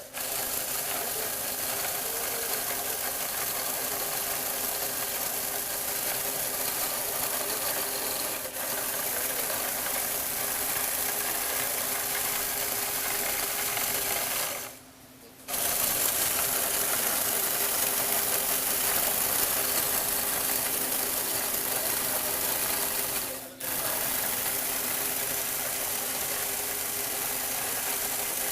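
Electric motor and plastic gears of a motorised Lego Technic car running steadily with a constant-pitch hum and gear noise. It cuts out for about a second halfway through and dips briefly twice more.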